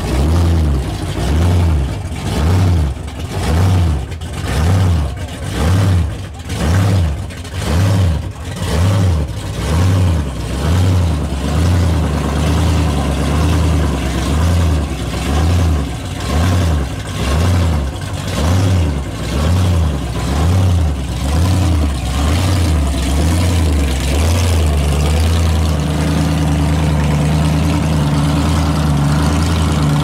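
Supercharged V8 of a red late-1960s Dodge Coronet idling with a heavy, rhythmic lope, the pitch rising and falling about once a second as the car creeps forward. About 25 seconds in, the note steadies and rises as the car drives off.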